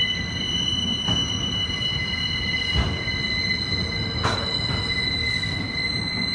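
Covered hopper wagons of a freight train rolling past, with steady high-pitched wheel squeal over a low rumble of wheels on the rails. A few sharp knocks come through, the loudest about four seconds in.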